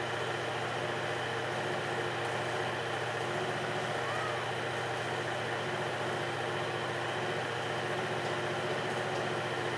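Steady machine hum with a few held tones, of the kind an idling engine makes. A short faint chirp comes about four seconds in.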